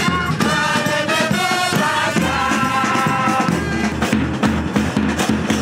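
Procession music: a group singing with hand percussion, then from about four seconds in a large bass drum beaten in repeated strokes.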